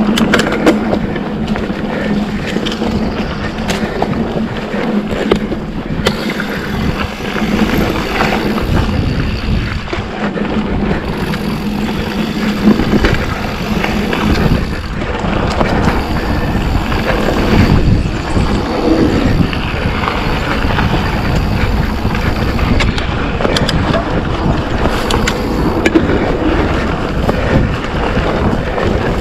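Mountain bike riding down a dirt singletrack: knobby tyres rolling over the dirt with the bike rattling, a steady hum, and occasional knocks over bumps.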